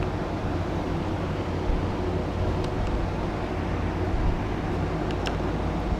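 Steady low rumble and hiss with a faint constant hum, and a few faint small clicks.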